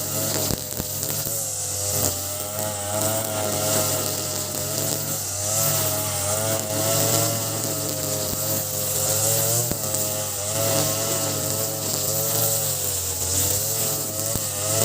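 Ogawa BG330 33cc two-stroke brush cutter, fitted with a 43cc carburettor, running at high throttle while cutting grass. Its engine pitch rises and dips every few seconds as it takes load, with a few sharp ticks.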